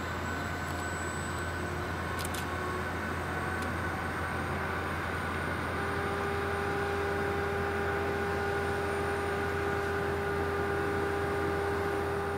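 Reims-Cessna F150K's four-cylinder piston engine and propeller running at low power during the landing rollout: a steady drone that grows a little louder about halfway through.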